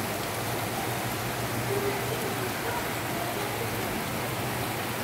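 Heavy rain falling steadily, a dense even hiss of rain on rooftops and the street.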